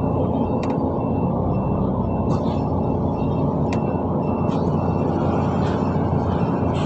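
Steady low rumble of a running bus, with a faint high beep repeating at even intervals and a few sharp clicks.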